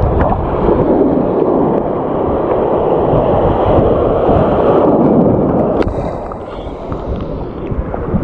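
Surf washing over a shallow coral reef flat: a rush of foaming water that swells and then eases off about six seconds in.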